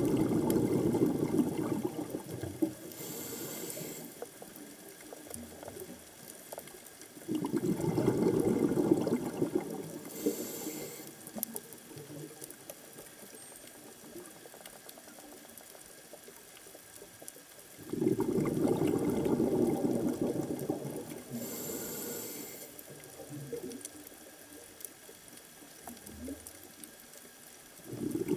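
Underwater sound of a scuba diver breathing through a regulator: three bursts of exhaled bubbles, each a low bubbling rush lasting two to three seconds, each followed shortly by a brief high hiss of inhalation. Another burst of bubbles begins at the very end.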